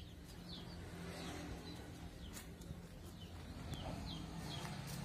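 A bird calling outdoors with short, high, falling chirps repeated every half second or so, over a low steady background rumble.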